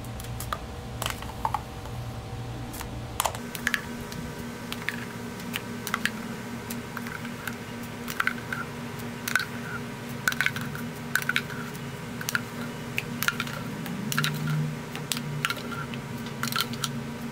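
Metal spoon clicking and scraping against a plastic blender cup and plastic containers in quick, irregular taps as slushy ice is scooped out and dished up, over a steady low hum.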